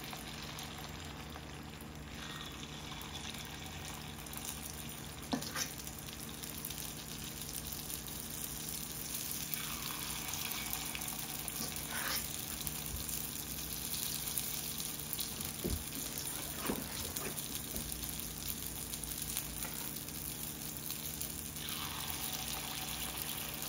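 Sesame oil sizzling steadily in a kuzhipaniyaram pan, with a few light knocks against the pan.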